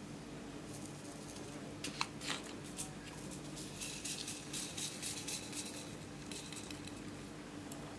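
A couple of sharp clicks from a small plastic cosmetic tube being handled, then a dense patter of rapid light ticks about four seconds in as glitter beads are shaken out onto clear slime in a glass tray. A faint steady hum runs underneath.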